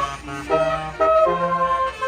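Bus Basuri melody horn playing a tune: a quick run of loud, steady notes changing about every half second, with a lower bass part under them and a low engine rumble beneath.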